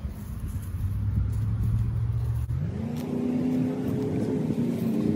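A motor engine running steadily with a low hum, then revving up to a higher steady pitch about halfway through.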